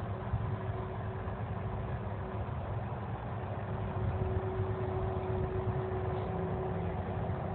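Distant Boeing 767 jet engines at taxi power, heard as a steady low rumble with a steady hum.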